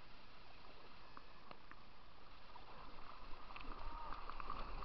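River water sloshing and splashing against a kayak close to the microphone, with small drips and splashes that grow busier in the second half.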